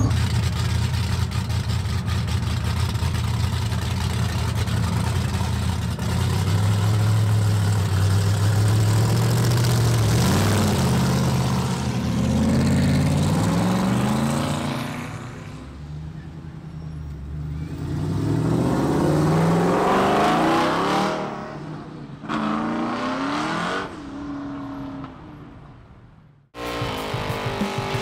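A 1950s Chevrolet station wagon's engine running steadily, then revving up as it accelerates away, with the pitch rising twice before fading. Music starts near the end.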